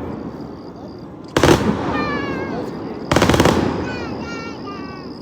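Two loud blasts about a second and a half apart, each rumbling away slowly and followed by a run of short falling whistles.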